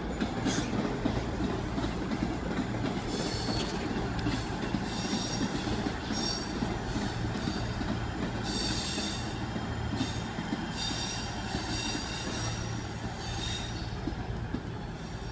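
Train moving slowly through the station: a steady low rumble with high-pitched steel wheel squeal that comes and goes in repeated bursts from about three seconds in until near the end.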